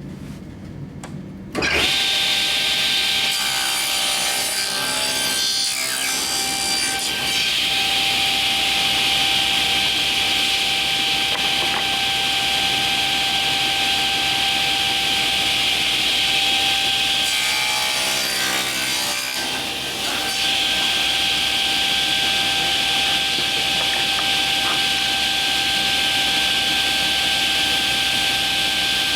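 Table saw switched on about a second and a half in, running with a steady whine while its blade crosscuts wooden trim against the grain on a sled. The cutting noise eases briefly about two-thirds of the way through, then the blade bites into the wood again.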